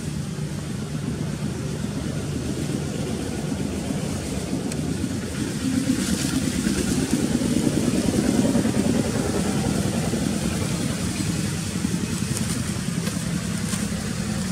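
An engine running steadily with a low rumble, growing louder about six seconds in and easing off a few seconds later.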